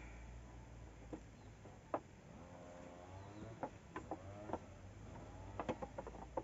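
Bamboo slat bed creaking and clicking under a person's weight as he leans back and lies down on it. Sharp clicks are scattered through, with drawn-out creaks in the middle and near the end.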